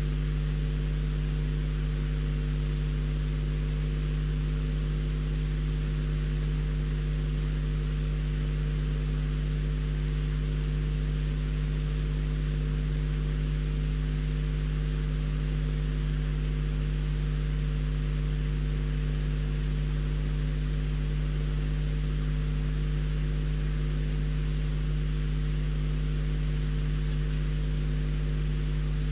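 Steady low electrical hum with several fixed tones under a constant hiss, the self-noise of a nest-box webcam's audio feed.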